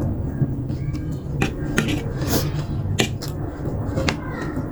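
Close-up eating sounds from a bowl of keema noodles: sharp wet clicks and smacks of chewing, with a short slurp about halfway through.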